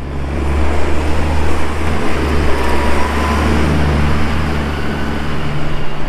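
Large farm tractor's diesel engine running steadily close by: a low, even engine hum under a wash of mechanical noise.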